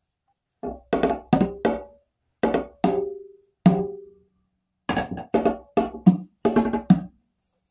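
Hand percussion played in a loose rhythm: about fifteen knocking strikes in uneven phrases, each dying away quickly, a few with a brief pitched ring.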